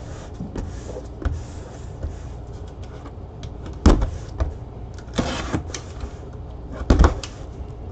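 A cardboard box being handled and moved on a table: a few sharp knocks and thumps, the loudest about four seconds in and another about seven seconds in, with a short scraping rustle a little after five seconds.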